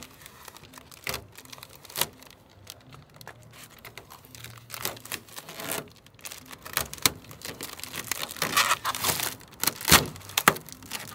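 Clear packing tape being ripped and crinkled as it is laid in layers on a car door panel, with irregular crackling and tearing that grows busier toward the end. About ten seconds in there is a sharp rip as the tape is yanked off the door to try to pop out the dent.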